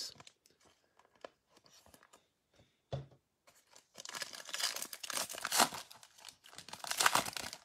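A 2021 Donruss baseball card pack's wrapper being torn open and crinkled by hand, in loud ripping stretches from about four seconds in. Before that there are a few faint clicks and a light knock about three seconds in.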